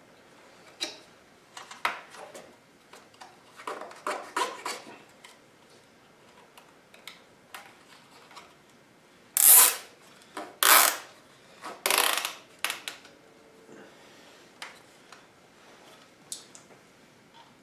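Nylon zip ties being pulled tight through their locking heads, a ratcheting zip, three louder pulls in the middle, with scattered clicks and taps of handling the ties and the plastic guard.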